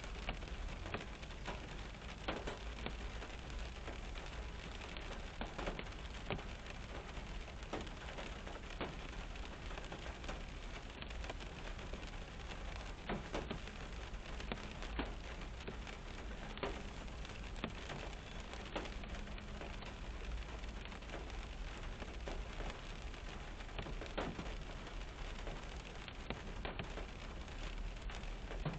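Rain falling on a car's roof and windshield, heard from inside the car: a steady hiss full of individual drop hits, with a low steady hum underneath.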